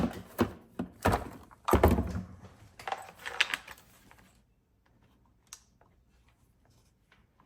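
Drill bits being rummaged through, a run of knocks, clacks and metallic rattles over the first four seconds or so, then stopping.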